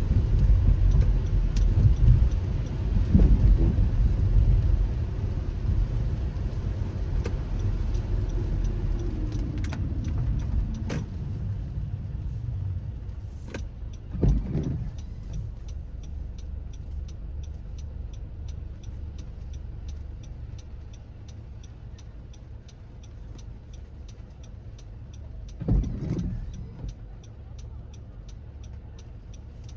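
Car road noise on wet streets, loud at first and then fading as the car slows, with a falling engine note. From about halfway on, a fast, regular ticking runs on, with two louder swells of passing noise.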